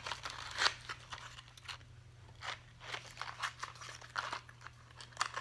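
Quiet, scattered clicks and crinkles of a small paper-and-cardboard box of candy cigarettes being opened and handled, with a few sharper ticks.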